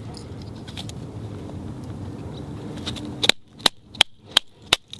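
Sharp knocks of a wooden baton striking the spine of a carbon-steel bushcraft knife, driving it down through a small upright stick to split it (batoning). Five knocks come at about three a second, starting a little past halfway, after a steady low background noise.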